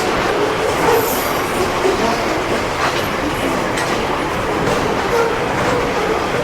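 Long intermodal container freight train rolling past, its wheels clattering over the rail with a steady rumble and brief faint squeals.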